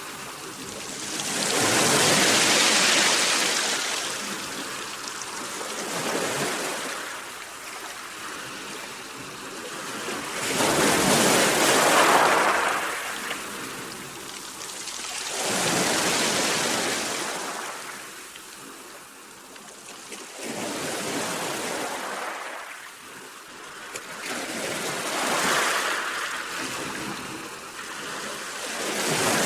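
Sea waves washing in, each surge of rushing water swelling and fading away, about every four to five seconds.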